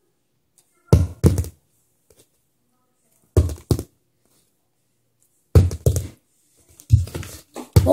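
Dull thumps, mostly in pairs a fraction of a second apart, coming about every two seconds and closer together near the end.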